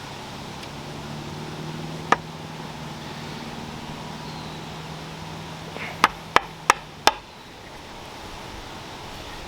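Sharp knocks of an axe head being knocked down onto its tight wooden handle to seat it: one knock about two seconds in, then four quick knocks about a third of a second apart near seven seconds. A low steady hum runs underneath and stops with the last knock.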